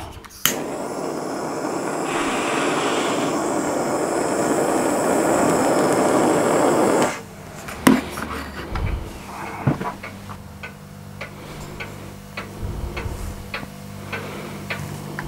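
A click, then a steady gas hiss lasting about six and a half seconds that cuts off suddenly: a gas lighter flame held to the wick of a Bowman methylated spirit wick burner to light it. Faint scattered ticks follow.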